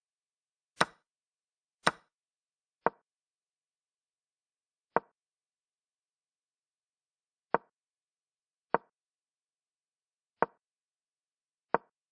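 Chess website's piece-move sound effects: eight short wooden clicks, one for each move played, spaced one to two and a half seconds apart. The first two are brighter than the six that follow.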